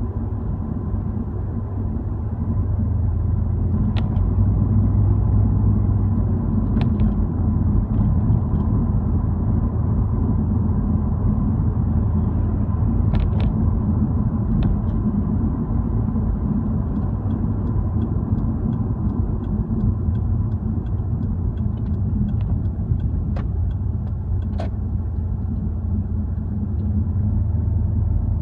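Car driving, heard from inside the cabin: steady low road and engine rumble. A few sharp clicks stand out, and in the second half a run of faint ticks comes about twice a second.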